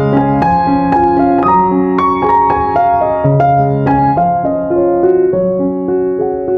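Background piano music: a gentle melody with chords, notes struck one after another at an even pace.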